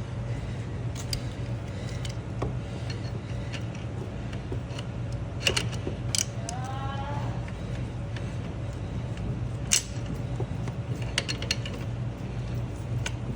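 Scattered metal clicks and clinks of large vise grips (locking pliers) being handled and fitted around a seized, crushed oil filter, over a steady low hum.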